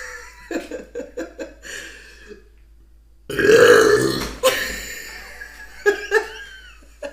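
A woman's loud, deep burp about three seconds in, lasting about a second.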